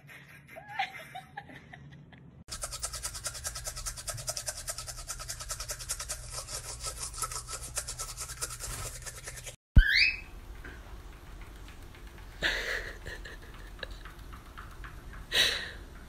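A toothbrush scrubbing teeth in rapid, even strokes for about seven seconds, stopping abruptly. After it comes a short rising whistle, then two louder short sounds.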